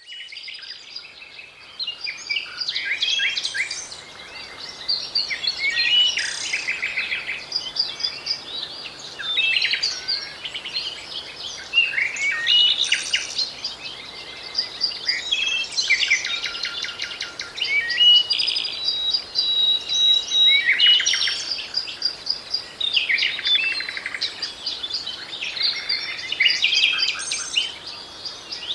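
Songbirds singing: a run of high chirping and trilled phrases, one after another with short pauses between them.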